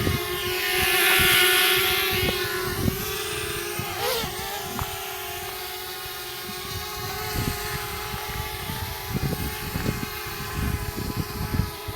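DJI Mavic Mini quadcopter hovering, its propellers giving a steady high buzzing hum that swells loudest about a second in, with irregular low rumbles underneath.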